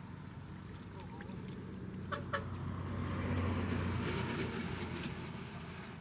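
Hands sloshing and scooping through shallow muddy water, rising to a louder splashing swell around the middle. Two short chicken clucks come about two seconds in, over a steady low hum.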